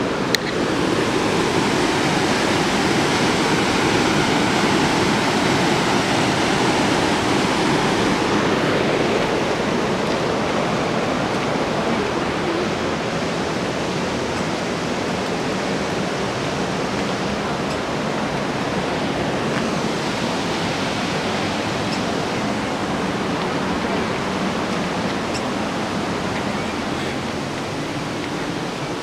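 Steady roar of rushing white water from the Merced River tumbling through its rocky gorge, continuous for the whole span and slightly louder in the first several seconds.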